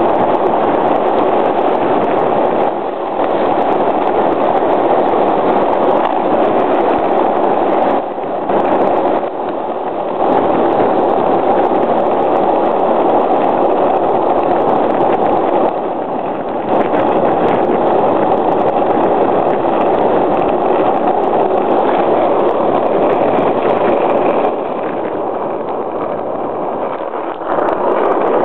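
Skateboard wheels rolling fast downhill over asphalt and paving, a steady loud rolling rumble that dips briefly now and then.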